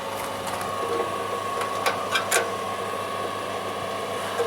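Generator running steadily, giving a constant hum, with a few sharp clicks about two seconds in from hand work on the chipper's fuel line.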